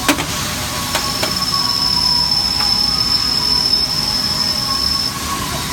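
Robot-loaded lathe cell running, a steady machine hum. A few sharp clicks come in the first second and a half, and a high-pitched whine starts about a second in and stops about a second before the end.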